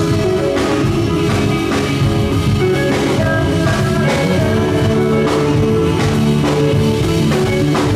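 Live rock band playing: electric guitar, bass and drum kit, the drums hitting at a steady pulse under sustained guitar chords.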